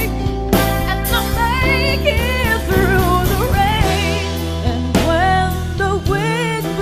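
A female pop ballad singer singing sustained, ornamented vocal lines with wide vibrato and quick runs over band accompaniment.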